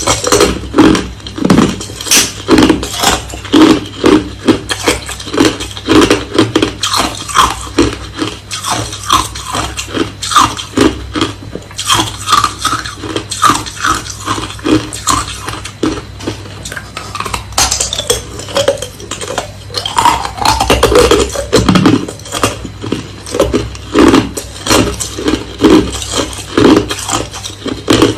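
Hard crushed ice being chewed close to the microphone: a steady run of loud, crisp crunches, a few a second.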